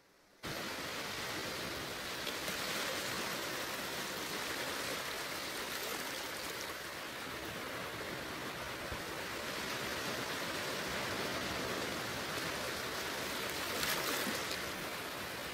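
A steady, even rushing noise with no pitch or rhythm, cutting in abruptly after a brief silence at the very start.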